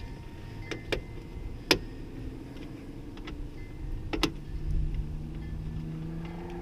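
Sharp metallic clicks and knocks of hand work on a truck's door handle and its clips: three in the first two seconds, the loudest a little under two seconds in, and another about four seconds in. A steady low hum follows near the end.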